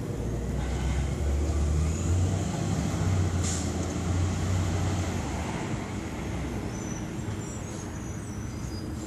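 Amrep automated side-loader garbage truck's engine running as the truck drives away, a low rumble that fades after about five seconds, with a short air hiss about three and a half seconds in.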